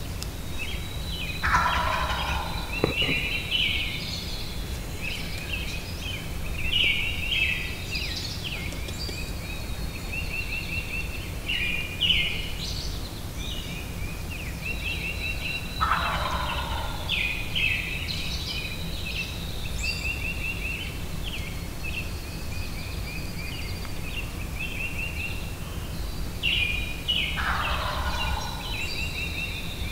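Wild turkey gobbler gobbling three times, about twelve seconds apart, each gobble a rattling call that falls in pitch. Small songbirds sing and trill without a break behind it.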